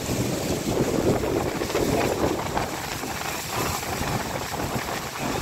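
Strong wind and heavy rain of a storm, a dense steady rush that surges in gusts, with the wind buffeting the microphone.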